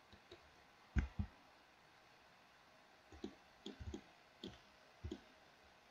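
Computer mouse clicks and keyboard key presses: a string of short, sharp clicks at irregular intervals, some in quick pairs.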